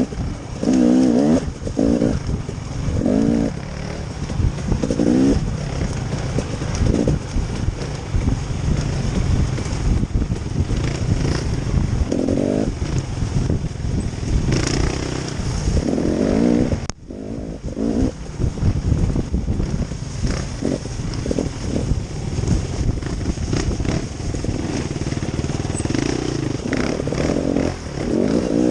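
Off-road vehicle engine under way, revving up and down again and again as the throttle is worked, with a brief break about seventeen seconds in.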